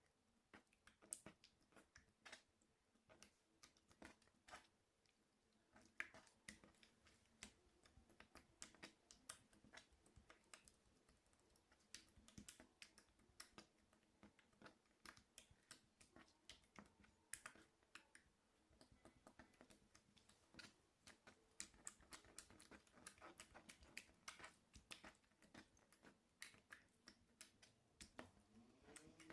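Slime being pressed and worked by hand: a faint, irregular stream of small sharp clicks and pops.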